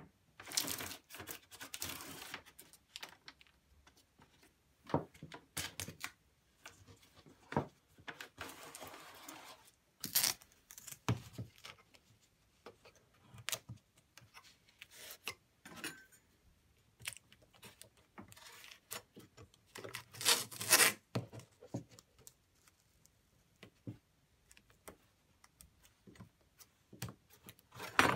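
Green painter's tape being pulled off its roll in several short rasping stretches and pressed down along wooden edges to mask them, with small knocks and handling clicks in between.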